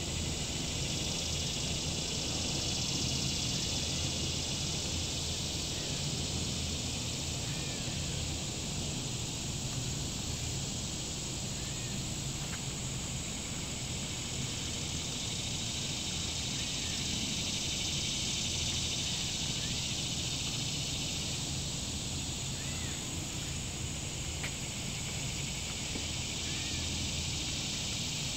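Outdoor ambience: a steady high hiss over a low rumble, with faint short bird chirps every couple of seconds.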